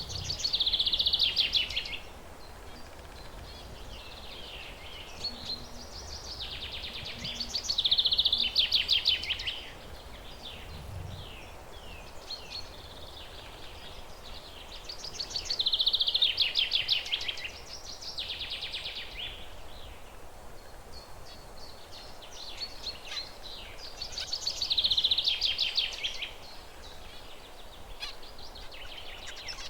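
Zebra finches singing: four phrases of rapid, buzzy notes, each about two seconds long and coming roughly every eight seconds, with short calls in between, over a steady background hiss.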